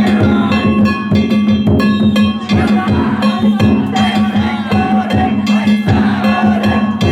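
Danjiri festival music: taiko drums and small hand-held bronze gongs (kane) struck in a fast, steady rhythm, with the gongs ringing on.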